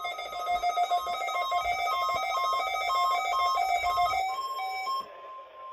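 Weather radio receiver sounding its alert alarm: a loud electronic warble of rapidly alternating tones that cuts off about five seconds in, leaving a fainter steady single tone.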